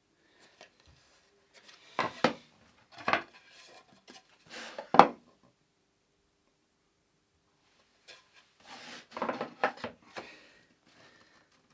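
Sharp knocks and clatters of hard objects being handled on a workbench. They come in two groups, the loudest knock about five seconds in, with a lull in between.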